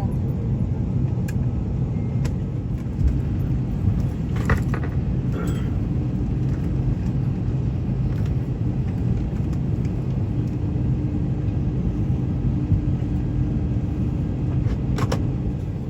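Steady low rumble of a vehicle interior, heard from inside, with a few faint clicks and rattles and a faint steady hum near the end.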